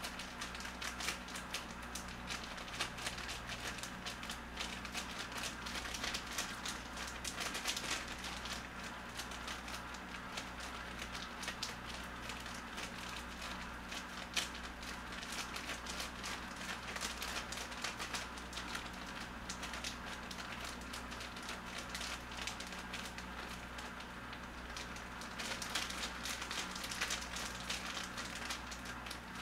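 Plastic meal-kit packaging of buckwheat noodles crinkling and rustling in the hands as the noodles are worked loose inside the pack, a continuous dense crackle. A steady low hum lies underneath.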